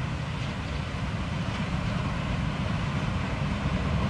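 WR 360 C 14 K diesel-hydraulic locomotive running as it approaches with its train: a steady low engine drone that grows slightly louder.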